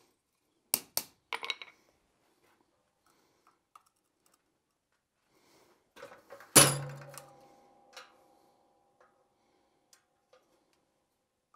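Steel blacksmithing tools and hot bar stock clanking against the anvil and a bending fork: two sharp clanks about a second in with a few lighter clinks, then one loud clank about six and a half seconds in that rings on for a few seconds.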